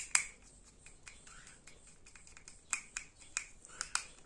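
Small sharp clicks and scrapes of a screwdriver tip turning the screw of a plastic screw terminal block, tightening it down on a wire. The loudest click comes just after the start, and a run of clicks follows near the end.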